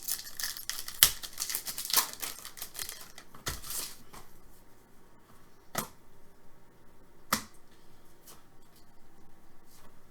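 Hockey trading cards being handled: a run of crisp rustling and sliding for the first few seconds, then quieter, with a few sharp clicks spaced out.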